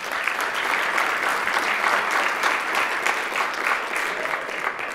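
Applause from a room of legislators, many people clapping together. It starts all at once and eases off slightly near the end.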